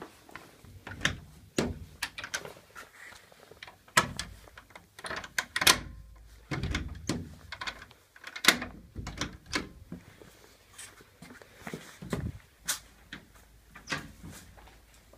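Doors being opened and closed among a string of irregular knocks and clicks, the loudest about halfway through.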